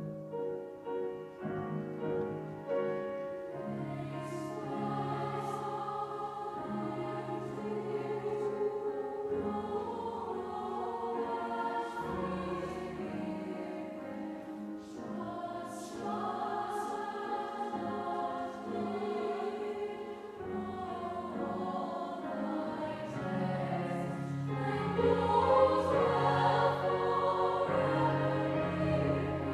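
High school girls' choir singing in harmony with grand piano accompaniment, coming in together after a silence and growing louder about 25 seconds in.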